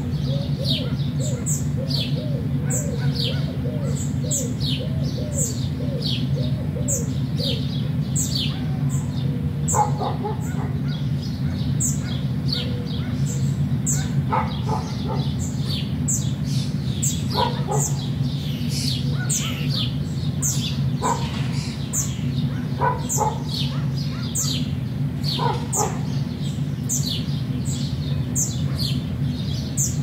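Songbirds chirping: many short, high, downward-sweeping chirps repeating throughout, with a run of lower arched notes during roughly the first eight seconds. A steady low rumble runs underneath.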